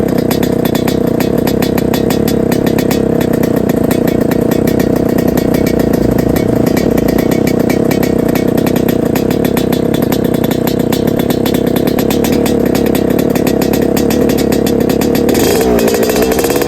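Yamaha RX-King's single-cylinder two-stroke engine running steadily through a new underbelly expansion-chamber exhaust, with a fast, even crackling beat. Near the end the throttle is blipped, the pitch rising and falling. The owner finds the exhaust mellow and not too loud.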